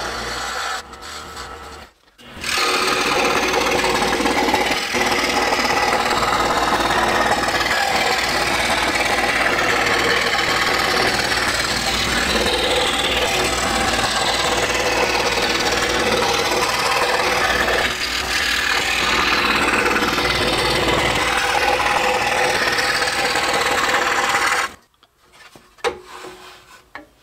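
Excalibur scroll saw with a number 7 reverse-tooth blade running and cutting a wooden board, a steady rasping saw noise over a low motor hum. It drops out briefly about two seconds in, then runs steadily until it cuts off suddenly near the end.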